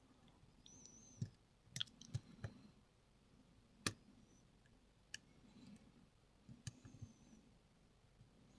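Faint, irregular clicks and taps of a lock pick working the pin stack of a Lockwood 334B45 padlock, the loudest click about halfway through, with a couple of brief, faint high squeaks.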